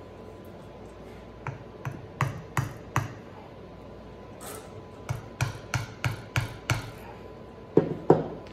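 A hammer tapping the end of a flathead screwdriver to work it around the base of a velvet deer antler, loosening the skin from the antler base. There are two runs of sharp metal taps, about five and then about six at roughly three a second, followed by two heavier knocks near the end.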